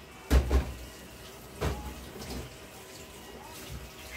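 Three short knocks: two close together just after the start, and a third about a second later, over a faint steady background.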